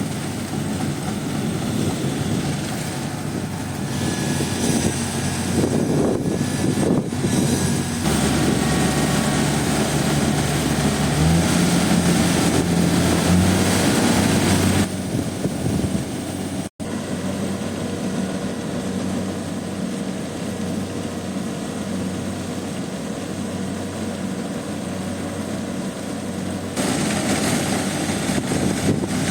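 Kubota DC70 rice combine harvester running, its engine and threshing machinery making a steady mechanical drone. The engine pitch steps up about a third of the way through, and the sound changes abruptly a few times.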